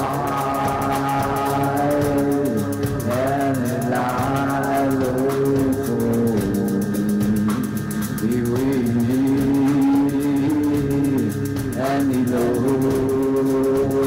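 Live rock band playing: a sustained melody line that slides between notes over steady bass, with a fast regular ticking of cymbals behind.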